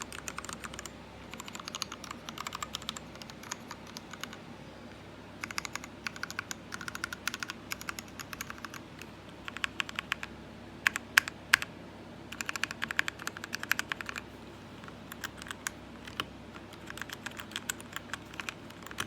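Typing on a GMMK TKL mechanical keyboard with lubed Gateron Red linear switches: bursts of rapid keystrokes separated by short pauses, with a few louder single key strikes about halfway through.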